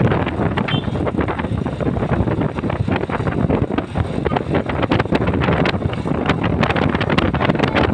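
Wind buffeting the microphone over the steady rumble of a vehicle, with a brief high tone just under a second in; no horn melody sounds.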